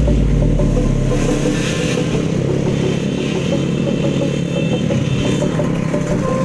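Motorcycle engine running steadily at road speed, heard from on the moving bike.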